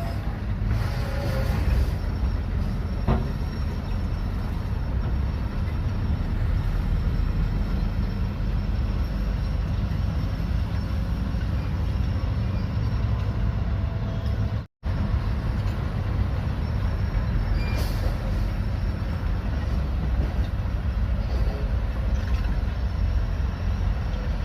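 Bulldozer's diesel engine running steadily under load, with a few metallic clanks near the start and again about two-thirds of the way through.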